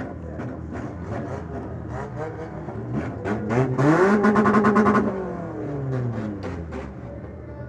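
Demolition derby car engine running rough and pulsing, revved hard about three seconds in. It stays high and loudest for about two seconds, then drops back.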